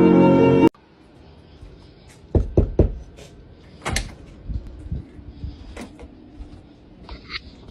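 String music cuts off abruptly under a second in. Then come sharp knocks and bumps like a door or cupboard being moved, three in quick succession about two and a half seconds in, another a second later, and scattered fainter clicks.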